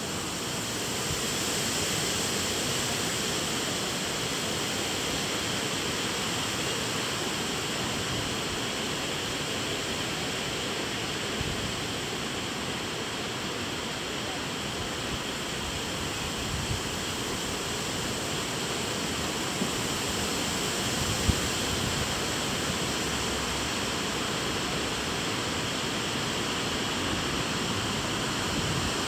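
Steady rushing noise of a storm outdoors, with a few faint knocks.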